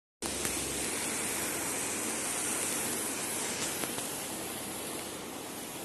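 Shallow river water rushing and splashing over rocks in small riffles, a steady hiss that eases slightly toward the end.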